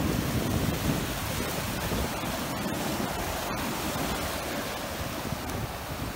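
Ocean surf breaking and washing up over the sand, a steady rushing noise of waves and foam.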